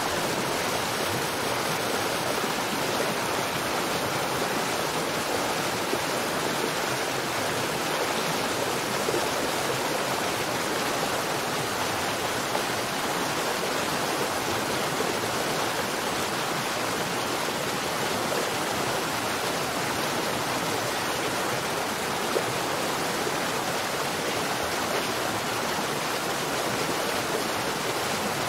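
Stream rapids: water rushing steadily over rocks, a constant even rush with no let-up.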